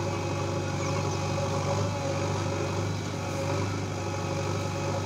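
Diesel engine of a JCB backhoe loader running steadily while its backhoe arm digs earth.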